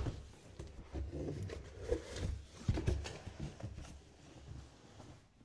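Cardboard box and packing being pulled and shifted, with irregular dull bumps and rustling, as a heavy marble pedestal is worked out of it.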